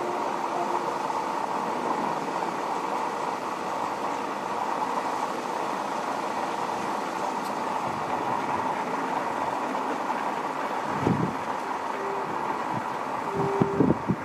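Distant Embraer E175 regional jet on approach, its turbofan engines giving a steady drone with a faint held whine. Short low buffets of wind on the microphone come about eleven seconds in and again near the end.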